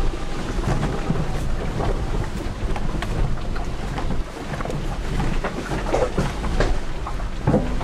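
Jeep Patriot 4x4 driving over a rough dirt trail, heard from inside the cabin: a steady low rumble of engine and tyres with frequent small knocks and rattles from the bumpy ride.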